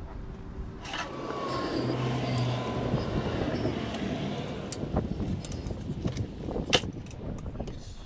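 A car passing by, swelling and fading over a few seconds with a low engine hum. It is followed by several sharp metal clicks and clinks from an Allen wrench on the bike rack's hardware.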